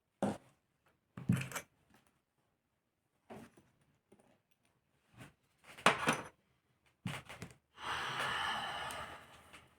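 Small metal tools and engine parts being handled on a workbench: a string of separate clicks and knocks, then a longer scraping rasp of about two seconds near the end.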